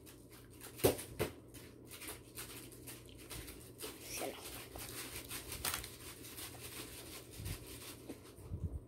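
Chewing and lip-smacking while eating a sauced chicken wing by hand: a string of small wet clicks and smacks, the sharpest about a second in, over a faint steady low hum.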